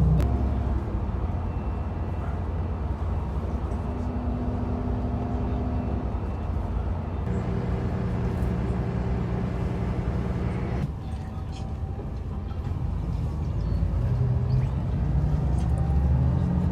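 Steady low rumble of a road vehicle's engine, with its pitch and level shifting abruptly twice.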